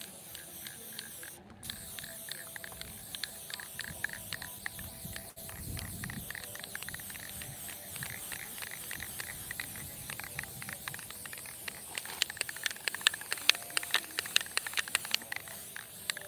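Aerosol spray-paint can hissing as it lays down a base coat, with a run of sharp clicks and spits for a few seconds near the end.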